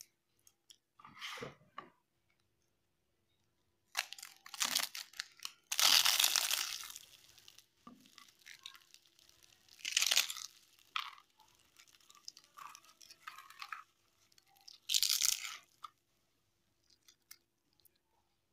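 A crisp paper dosa being torn and crushed by hand, crunching and crackling in several separate bursts, the loudest about six seconds in. The crackle is the sign of a dosa cooked fully crisp.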